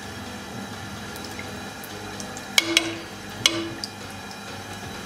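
A spoon knocks against a pan of water three times, sharp taps with a brief ring each, between two and a half and three and a half seconds in, as ginger garlic paste is knocked off into the water. Light sloshing and dripping of water in the pan.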